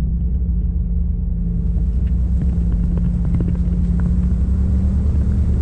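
Side-by-side UTV engine running steadily while driving, with a hiss of water spray added from about a second and a half in as the tyres run through a shallow stream on the trail.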